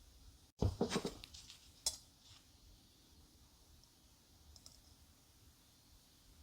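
A quick run of sharp clicks and clatter, hard objects being handled, lasting about a second and a half, with one last sharp click near its end.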